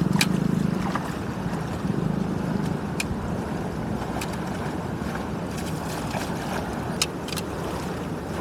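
Steady rush of rainwater flowing through a drainage channel, with a few sharp clicks or snaps.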